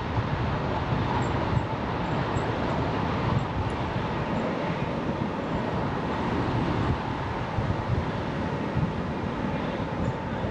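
Steady wind rush and rolling road noise from riding a bicycle, buffeting an action camera's microphone as a constant low rumble.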